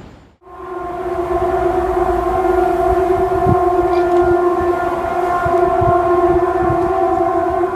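A loud, steady, horn-like drone held on one low pitch with a stack of overtones, the kind of unexplained sound called 'sky trumpets'. It starts about half a second in, after a brief drop-out, and holds without changing pitch.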